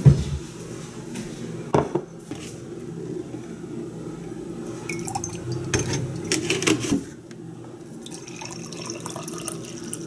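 Liquid poured into a ceramic mug, first milk from a jug and then coffee from a French press, in a steady trickle that turns lighter and higher near the end. A knock at the start and a couple of clinks about two seconds in.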